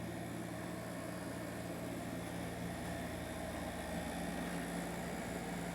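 A steady mechanical hum with a constant low tone, like a running appliance or fan.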